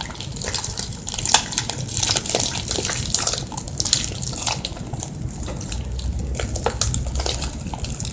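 Fluffy slime being mixed by hand with a laundry-detergent activator: continuous irregular wet squelching and crackling squishes.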